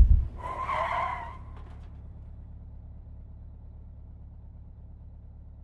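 A heavy thud dies away, then car tyres screech in a skid for about a second, followed by a low steady rumble.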